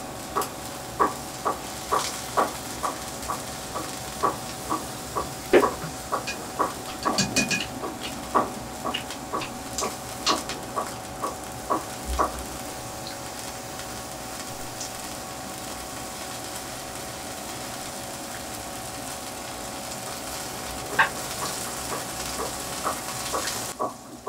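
Seafood and vegetables sizzling on an electric smokeless grill: a steady hiss with a low hum under it. Over the first half, short clicks come about twice a second, then thin out.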